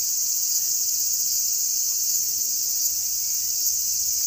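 Steady, high-pitched drone of a chorus of insects, unbroken throughout.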